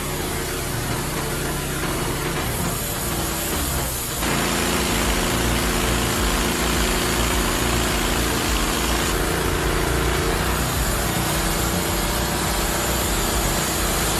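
Engine-driven machinery running steadily. About four seconds in, it abruptly gets louder and changes pitch.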